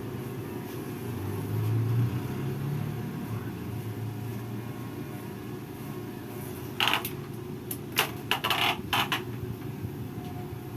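Hair-cutting scissors snipping through hair five or six times in quick succession, starting about seven seconds in, over a steady low hum.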